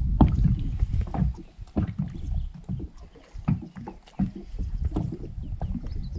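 Irregular knocks and handling noises on a small fishing boat over a low, steady rumble.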